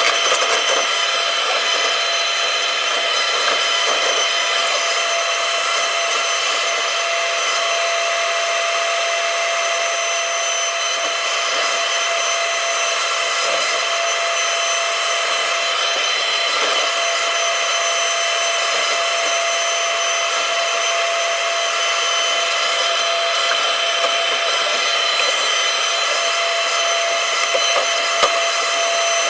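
Takeuchi TB290 excavator running steadily under work, its engine and hydraulics making a continuous whining drone with no breaks.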